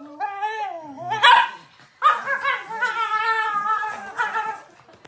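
A dog making long, wavering pitched calls: a short falling call, a sharp loud yelp about a second in, then a drawn-out howling call of about two and a half seconds.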